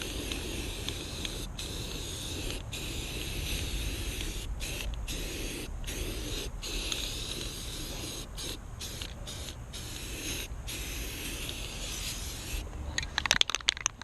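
Primer spraying with a steady hiss in repeated passes, broken by about a dozen brief pauses, as the first coat of primer goes on. A quick run of sharp clicks comes near the end.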